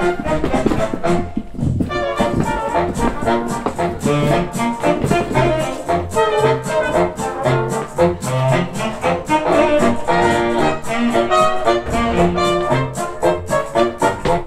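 Upbeat brass-led music with a steady beat, played for a game of musical chairs; it cuts off suddenly at the end, the cue for the players to sit.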